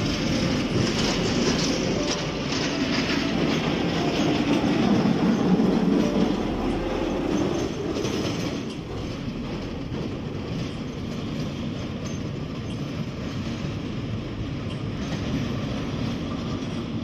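Heavy road-maintenance machine clearing ice from a road: a steady, loud rumbling and grinding that eases a little about halfway through.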